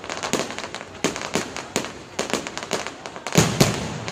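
Aerial fireworks going off: an irregular run of bangs and crackles, several a second, with two louder booms about three and a half seconds in.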